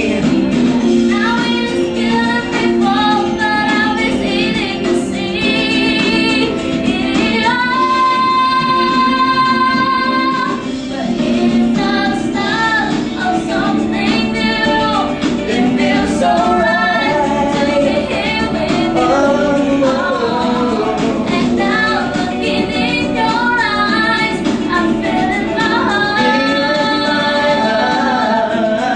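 Pop song with a female lead vocal over a full instrumental backing, with one long held sung note about eight seconds in.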